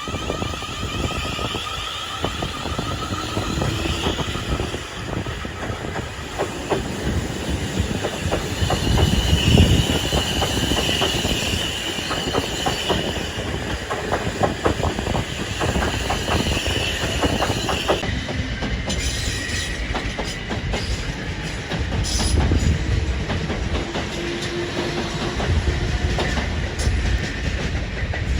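A train running past, its wheels clattering over rail joints in rapid clicks, with a high squeal from the wheels for several seconds in the middle.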